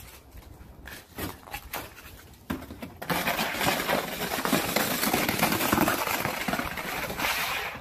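A plastic saucer sled scraping over icy pavement and snow as a dog shoves it along with its front paws. A few scattered knocks and scrapes come first, then from about three seconds in a loud, continuous grating scrape.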